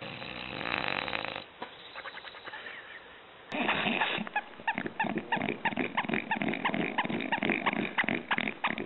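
A bulldog snoring in its sleep for about a second and a half. Then, after a cut, a bulldog chews a toy, with a quick run of short squeaks, several a second, mixed with chewing clicks.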